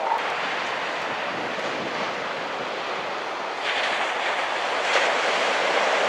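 Small surf breaking and washing in, heard as a steady hiss that grows louder about two-thirds of the way through as a wave breaks, with some wind on the microphone.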